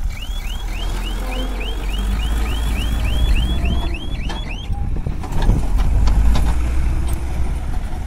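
Cat 424B backhoe loader's diesel engine running while its reversing alarm chirps, about three short rising chirps a second, stopping about four and a half seconds in. The engine then gets louder, with a few knocks, as the machine moves off.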